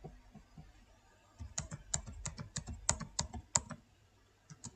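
Computer keyboard being typed on: a quick run of key presses for about two seconds in the middle, with a few fainter taps before and after.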